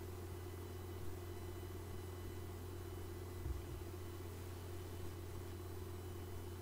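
A steady low hum with faint hiss underneath, unchanging, with one brief low bump about three and a half seconds in.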